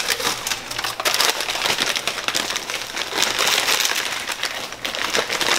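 Plastic bags of frozen food crinkling and rustling as they are rummaged out of a freezer and handled, a dense, continuous crackle.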